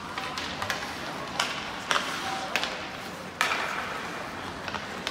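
Ice hockey play in a rink: about six sharp clacks of sticks and puck at irregular intervals, two of them louder, over the steady scrape of skates on the ice.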